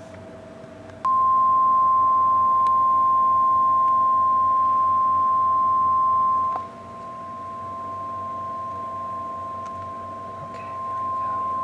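A steady sine-wave test tone of about 1,050 Hz played through the loudspeaker under test, used for SPL measurement. It starts abruptly about a second in, drops sharply in level a little past halfway, and swells back up near the end.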